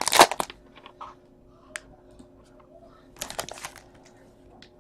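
Trading cards and a foil card-pack wrapper being handled: a loud crinkle at the start, a few light clicks and taps, and another brief rustle about three and a half seconds in, over a faint steady hum.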